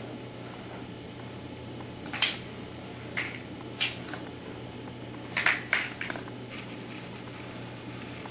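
Irregular sharp clicks and knocks, about seven of them between two and six seconds in, several in quick pairs, over a steady low hum.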